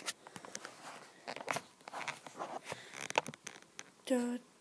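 Scattered clicks, rustles and crackles of handling noise as a handheld camera is moved about. Near the end a person hums a short note.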